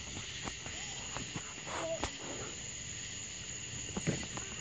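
Insects chirping in a steady, high, continuous drone, with a few faint clicks and distant voices.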